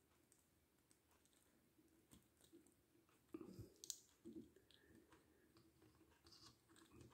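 Faint clicks and light rustles of hands handling a small plastic action figure. The clicks are mostly in the second half, a few of them a little louder about halfway through.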